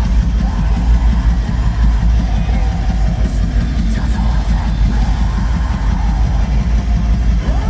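Live metalcore band playing heavy music at full volume: dense, fast-pounding drums and distorted bass and guitars, with a voice over them.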